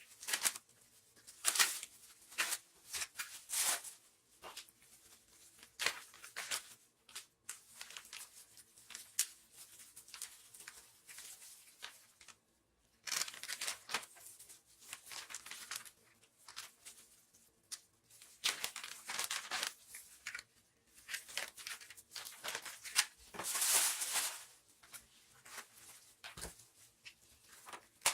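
Plastic wrap and food bags crinkling and rustling in irregular bursts as raw meat is divided and wrapped into portions, with a few longer tearing stretches.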